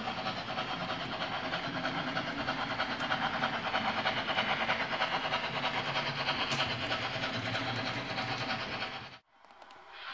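Model railway trains running on the track: a steady, dense rattle of wheels over the rails with the running noise of the locomotive and wagons as they pass close by. It cuts off suddenly about nine seconds in.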